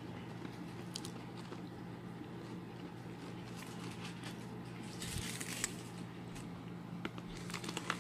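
Foil-lined snack bag crinkling as a kitten rummages and eats inside it, with faint crunching clicks; a louder crinkle about five seconds in and more rustling near the end as a hand takes hold of the bag. A faint steady low hum runs underneath.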